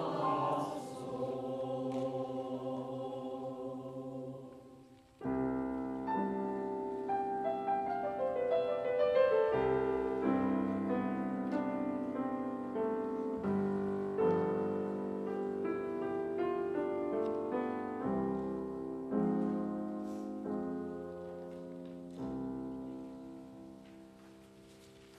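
Mixed choir holding a final chord that fades away; about five seconds in, a piano starts a solo passage of ringing notes that slowly dies down toward the end.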